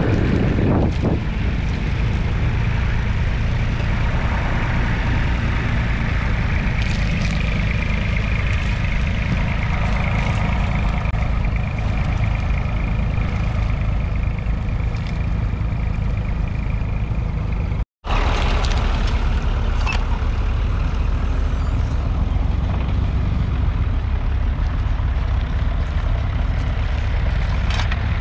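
Massey Ferguson 135's 2.5-litre three-cylinder diesel engine running steadily under load while pulling a two-furrow reversible plough. The sound drops out for an instant about two-thirds of the way through, then carries on the same.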